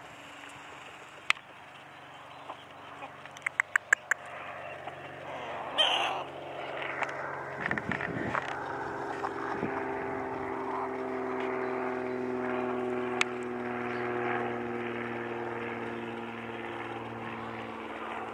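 A motor's drone comes in about seven seconds in and holds on, its pitch slowly falling. Before it there is a quick run of about five sharp clicks.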